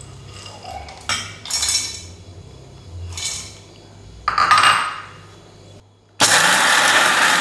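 Roasted peanuts tipped into a stainless-steel mixer-grinder jar, rattling against the metal in three short bursts. About six seconds in, a Sisil electric mixer grinder starts and runs steadily, grinding the peanuts.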